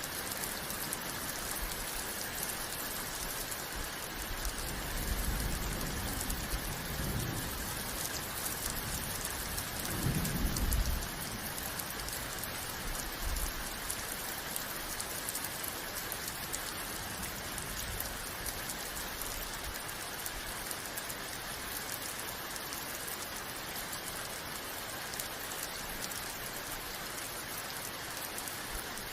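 Steady rain hissing evenly, with low rumbles of thunder about five seconds in and a louder one at about ten seconds.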